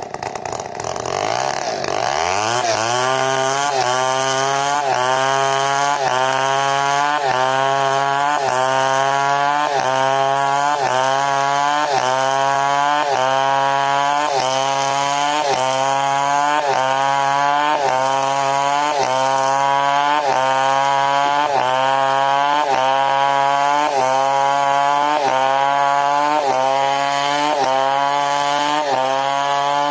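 Large 070-class two-stroke chainsaw revving up, then cutting through wood under load. Its engine note rises and dips in a steady cycle about once a second.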